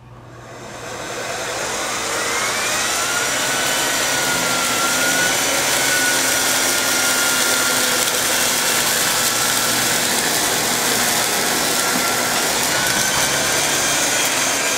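Miele S4 Neptune canister vacuum cleaner spinning up to full speed over about two seconds, then running steadily with a high whine over the rush of air.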